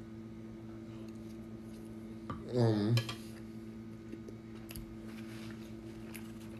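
A metal spoon clicking against a ceramic plate a few times, with a short vocal sound about two and a half seconds in, over a steady low hum.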